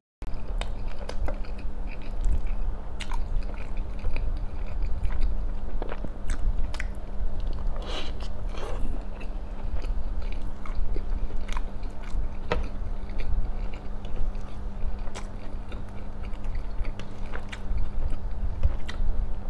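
A man chewing and biting into a Roti John, a soft bread roll loaded with chicken filling, vegetables and cheese, with many small scattered wet clicks from the mouth and fingers. A steady low hum runs underneath.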